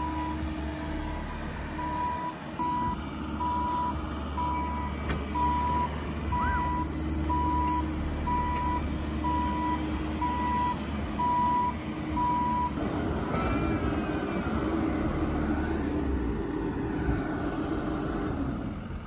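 Bobcat E55 mini excavator's travel alarm beeping at an even pace over its running diesel engine, with the tractor's engine running alongside. The beeping stops about two-thirds of the way through while the engines keep running.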